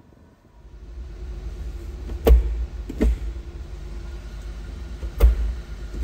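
Handling noise as the camera is moved through a small truck's cab: a low rumble with two sharp knocks about three seconds apart and a lighter knock between them.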